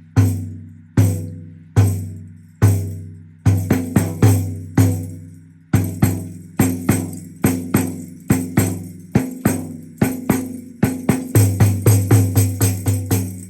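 A hand-held drum struck over and over, each stroke ringing out with low tones and a jingly shimmer. The strokes come about one or two a second, then quicken into a fast run near the end.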